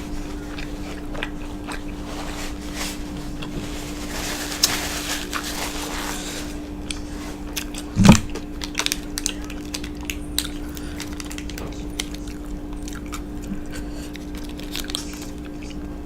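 Close-miked chewing and crunching of a fried egg roll, with many small sharp crunches and mouth clicks, densest between about four and six and a half seconds in. A single short low thump about eight seconds in is the loudest sound.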